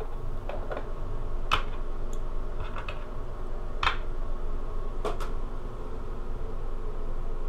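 Long metal Meccano angle girders being handled, giving a handful of sharp, light clicks and taps at irregular intervals over a steady low hum.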